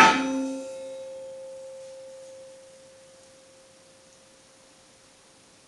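A 10 mm thick stainless steel plate clangs once and rings on with a clear, bell-like tone that slowly dies away over about five seconds.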